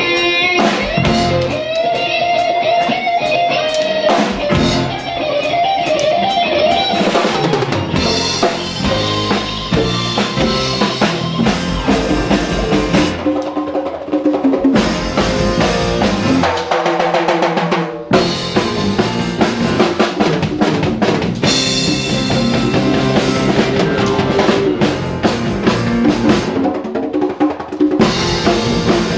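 Live Latin band playing, with drum kit and guitar leading; the music breaks off sharply and starts again about two-thirds of the way through.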